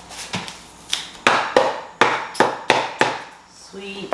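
A quick series of about nine sharp wooden knocks, two to three a second, on the new cork plank flooring.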